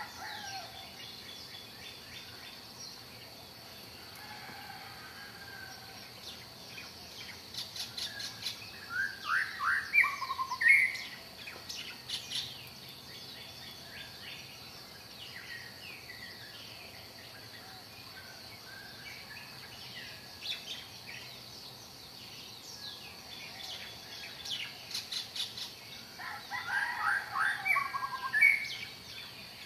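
Songbirds chirping and calling: bursts of quick rising and falling chirps that crowd together about a third of the way in and again near the end, over a steady faint high hiss.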